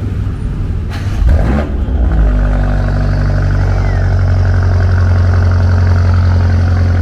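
BMW F90 M5 Competition's twin-turbo V8 cold-starting through a Remus cat-back exhaust. It catches a little over a second in with a quick rising flare, then settles into a loud, steady cold-start fast idle.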